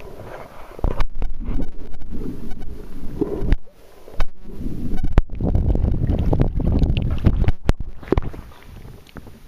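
Water sloshing and gurgling as heard by a camera held just underwater, an irregular low rumble broken by a few sharp clicks.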